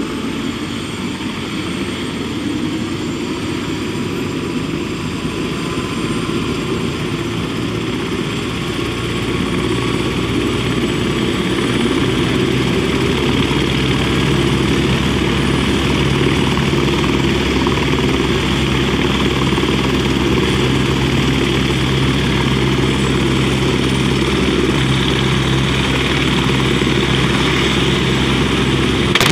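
Helicopter turbine engine and main rotor running on the ground, a steady drone with a low rotor beat that grows louder from about ten seconds in as it winds up for take-off.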